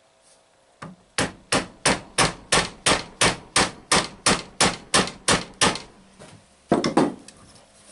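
Steel hammer tapping a driver to seat the new front bearing flush in a Delco CS-130 alternator housing: a steady run of about fourteen sharp taps, about three a second, then a quick flurry of three or four taps near the end.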